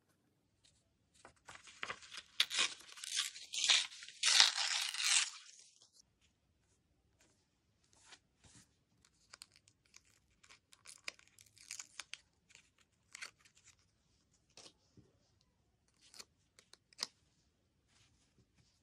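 Paper tearing and crinkling for about five seconds, dense and crackly. It is followed by sparse, quieter rustles, taps and small peeling sounds as stickers are handled and pressed onto a journal page.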